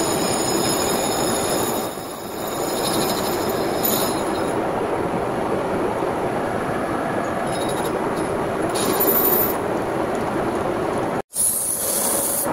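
Brake disc being skimmed on a lathe: the cutting tool scrapes across the spinning rotor face with a steady metallic screech. The sound breaks off abruptly near the end and gives way to sandpaper rubbing on the turning disc.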